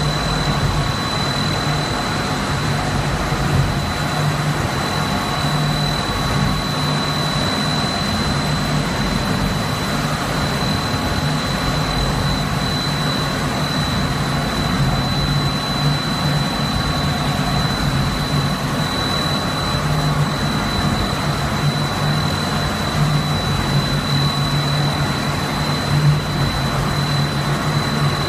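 Twin-screw food extruder line for snack pellets running: a steady machine hum with a constant thin high whine over it.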